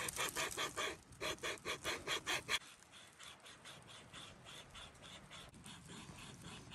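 Wazoo wire saw, strung on a bent-branch bowsaw frame, rasping back and forth through a wooden stick in quick, even strokes, several a second. The strokes grow fainter about two and a half seconds in but keep going.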